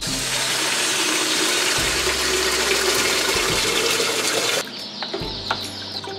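Tap water running hard from a faucet into a plastic pitcher of yellow electrolyte mix in a stainless steel sink, filling it; the water shuts off abruptly about four and a half seconds in.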